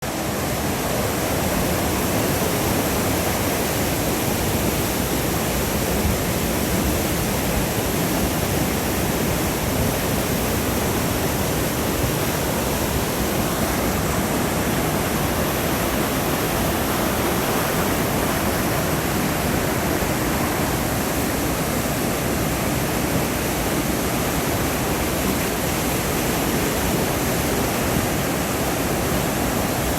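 River in flood after typhoon rain: fast, high water rushing steadily without a break.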